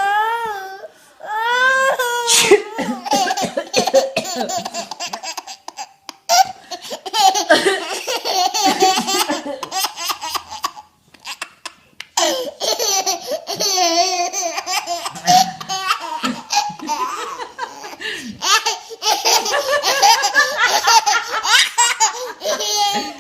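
Babies laughing hysterically in long, high-pitched fits, broken by a brief pause about six seconds in and a longer one about eleven seconds in.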